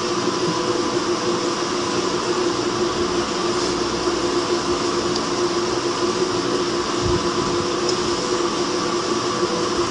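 Steady hum and hiss with several constant tones, unchanging throughout.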